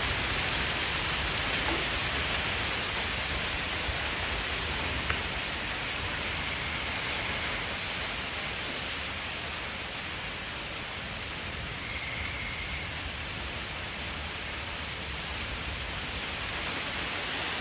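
Steady rain falling, with scattered individual drop hits and a low rumble underneath.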